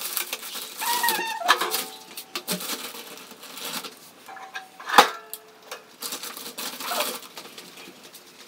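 Plastic bread bag rustling and crinkling as it is handled and opened on a kitchen counter, with scattered small clicks and one sharp knock about five seconds in.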